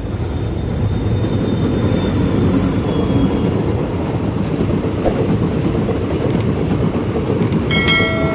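Passenger train's coaches rolling past close by, a steady heavy rumble of wheels on the rails that builds over the first second. A short horn sounds near the end.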